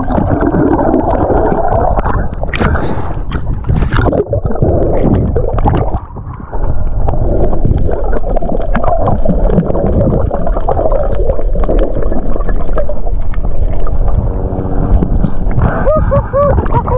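Water gurgling and sloshing against a head-mounted camera during a spearfishing dive. There are a few sharp clicks a few seconds in and a short pitched sound near the end.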